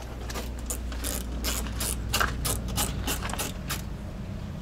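Ratchet wrench clicking through a quick, irregular run of strokes while fixings are worked on during fitting of a truck fender and light, over a low steady hum.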